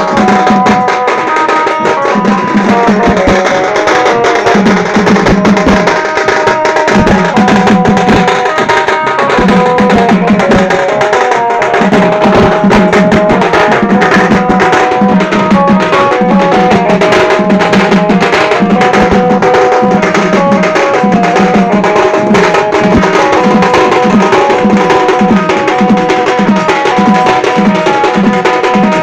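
Sing baja drums, large horn-decorated folk drums beaten with sticks in a loud, steady rhythm, with a melody of held notes played over them.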